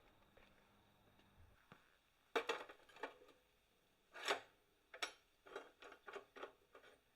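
Faint metal-handling sounds in a workshop: after about two seconds of quiet, a quick cluster of light scrapes and clicks, one longer swish, then about seven short strokes near the end.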